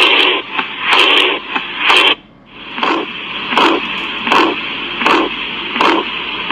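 Recorded heart sounds heard through a stethoscope: a regular beat about once a second with a steady hiss between beats. After a brief break about two seconds in, a new recording follows with faster beats.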